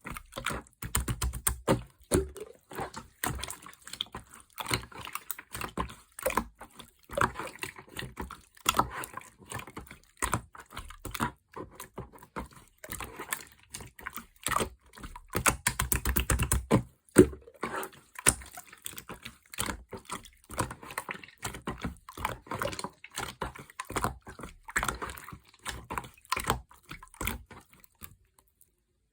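Clear slime being squished, folded and pressed by hand, making dense irregular sticky clicks and pops, with a few heavier squelches. It stops about a second before the end.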